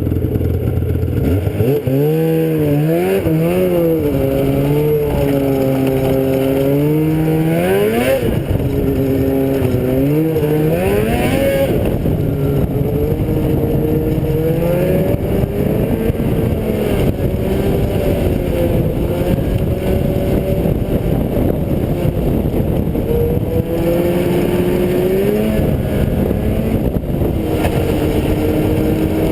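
Vehicle engine running under way, its pitch climbing and dropping several times in the first dozen seconds as it speeds up and eases off, then holding steadier.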